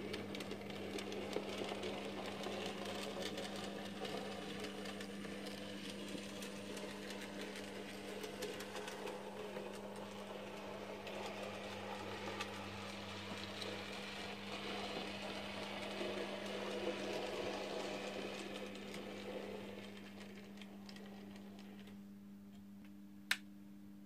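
Graham Farish N gauge Coronation class model locomotive running along the track: a steady whirr of its small motor and wheels on the rails over a steady low hum. The whirr fades after about twenty seconds as the train moves away, and there is one sharp click near the end.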